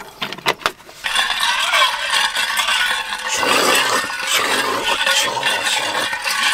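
A few crackles from a plastic water bottle, then from about a second in, an insulated water jug is shaken hard, with ice rattling and clinking inside it steadily.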